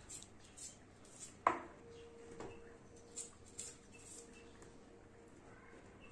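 Faint small clicks and scrapes of a paring knife peeling garlic cloves by hand, with one sharper click about one and a half seconds in. A thin steady tone runs from about two seconds in until near the end.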